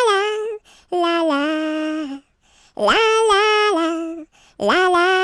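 A solo voice singing a wordless 'la la la' melody a cappella, in long held notes grouped into three phrases with short breaths between them.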